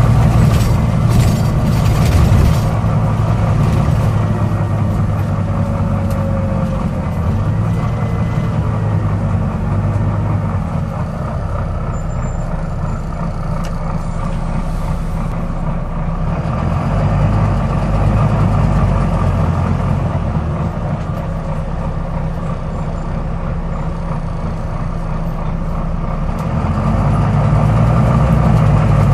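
Volvo B9TL double-decker bus's six-cylinder diesel running under way, heard on board, its note rising and falling as it pulls away and eases off. A few sharp clicks sound in the first couple of seconds, the clicking noise this bus is known for.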